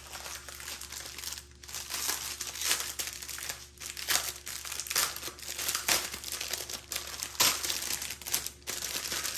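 Plastic crinkling and rustling in irregular bursts as small clear bags of diamond painting drills are handled and shifted about on a plastic-covered canvas.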